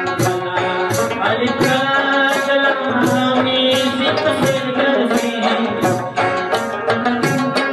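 Afghan rabab playing a folk melody over a steady percussion beat.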